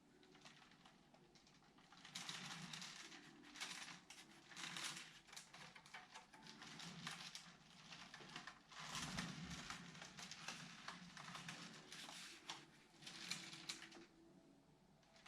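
Faint, irregular rustling and scratching noises that come and go in bursts of a second or so.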